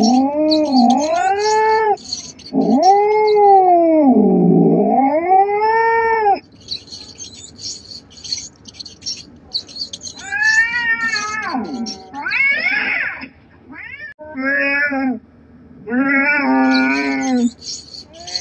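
Cat caterwauling: a run of long, wavering yowls that rise and fall in pitch, about six of them, the longest close to four seconds, with a scratchy hiss in the pauses between calls.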